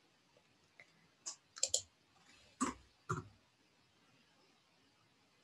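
A handful of faint, sharp clicks from a computer mouse and keyboard, two of them in quick succession.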